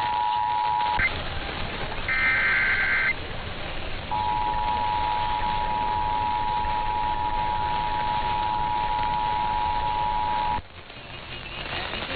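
Emergency Alert System two-tone attention signal, a steady pair of tones near 850 and 960 Hz, cutting off with a click about a second in. About two seconds in comes a one-second screech of SAME digital header data, then the two-tone attention signal sounds again for about six seconds and stops suddenly near the end, leaving radio hiss.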